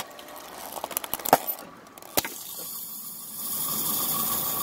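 Plastic disposable lighters cracking and snapping as a car tyre crushes them: a few sharp cracks, the loudest about a second and a half in. From about three seconds in, a steady car engine noise.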